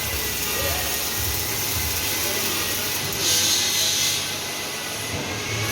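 Steady industrial machine hum and hiss, with a brief louder burst of hiss about three seconds in.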